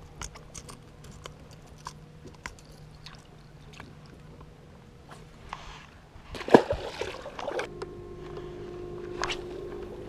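Small clicks and knocks of a fish being handled on a boat's carpeted deck, then a loud splash about two-thirds of the way through as it goes back over the side. Near the end a steady electric hum starts: the bow trolling motor running.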